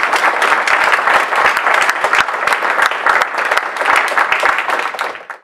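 Audience applauding, with dense steady clapping that tails off and cuts off just before the end.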